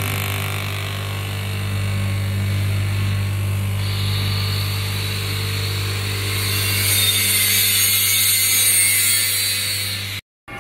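Electric fan motor of a stainless-steel tray drying oven running, a steady low hum with a hiss that grows louder about two-thirds in. The sound cuts off suddenly near the end.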